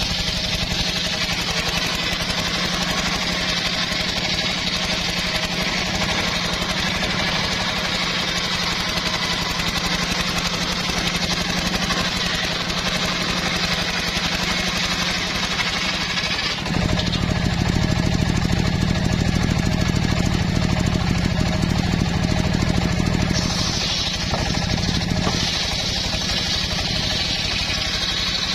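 Homemade circular saw bench with a large steel blade ripping an old mahogany log lengthwise, its motor running steadily under the load with the high cutting noise of the blade in the wood over it. A little past halfway the cutting noise drops away and the motor's hum comes forward for several seconds, then the blade bites into the wood again near the end.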